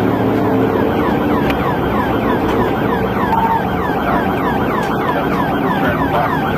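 Police siren in its fast yelp mode, quick falling wails at about four a second, over steady engine and tyre noise from inside a patrol cruiser in pursuit at highway speed.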